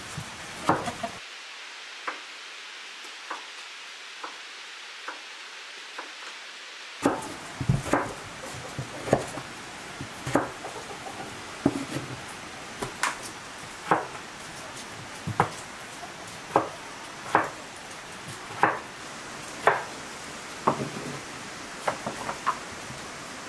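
Kitchen knife peeling raw potatoes by hand: a sharp cutting click about once a second over a steady hiss, the strokes growing louder and more regular about a third of the way in.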